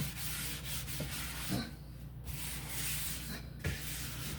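Scrubbing inside a refrigerator, a brush or cloth rubbing over its surfaces in stretches with short pauses, over a steady low hum.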